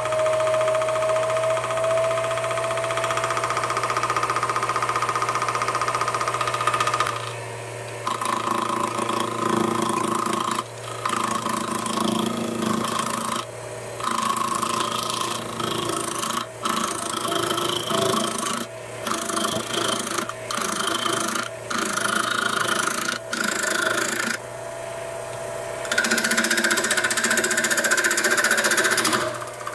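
Vevor 7x14 mini lathe running with its four-jaw chuck spinning, a steady motor whine for the first several seconds. Then the cutting tool bites into the spinning wooden workpiece in short repeated passes, the rough cutting noise starting and stopping every second or so. A longer, louder cut comes near the end.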